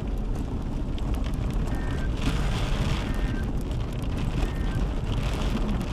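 Vehicle driving on a wet, muddy dirt road: a steady low rumble of engine and tyres, with wind noise over it.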